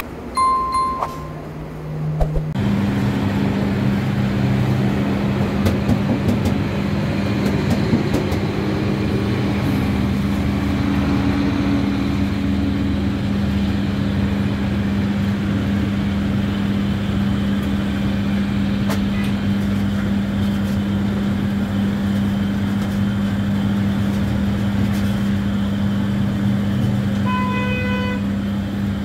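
Bakery dough-rolling machine running with a steady hum and mechanical noise, starting about two and a half seconds in. A brief pitched tone sounds near the end.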